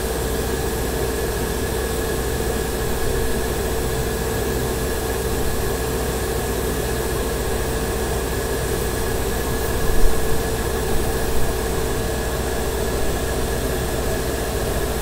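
Airbrush compressor running steadily with a continuous hiss of air through the airbrush as primer is sprayed. A brief knock about ten seconds in, with two smaller ones just after.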